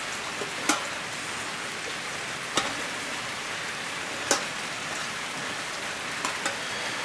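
Stainless steel tongs clicking sharply about five times against the grill grate and a steel pan as skewers are lifted off a charcoal kettle grill, over a steady hiss.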